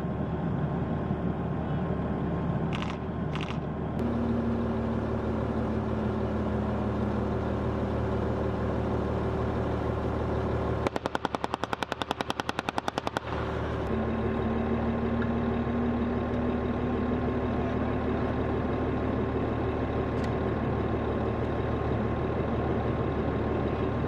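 Tracked armoured personnel carrier's diesel engine running steadily, with a steady engine whine. Around the middle, a long burst of rapid machine-gun fire lasting about two seconds cuts across it, then the engine carries on.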